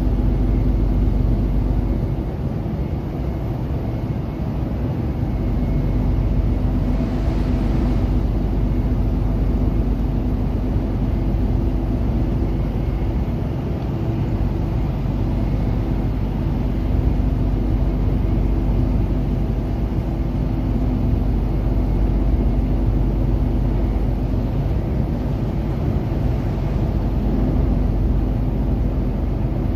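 Steady drone of a heavy truck heard from inside its cab while cruising on a wet motorway: engine and tyre noise with a constant low hum. There is a brief swell of hiss about seven seconds in.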